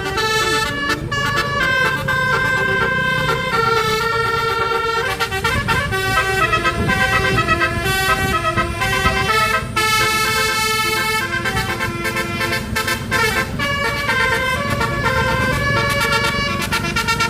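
A bus's basuri telolet horn, a multi-note musical air horn, playing a running melody of quickly changing notes, with a low rumble underneath.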